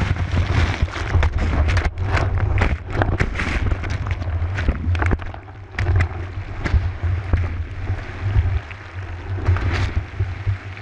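Churning whitewater from a breaking wave, heard from inside it: a loud low rumble of turbulent water full of crackling splashes and bubbles, easing off about halfway through.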